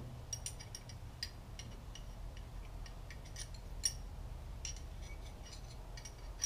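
Scattered light metallic clicks and clinks of a wrench being worked on the exhaust pipe bolts at the exhaust manifold, over a low steady hum.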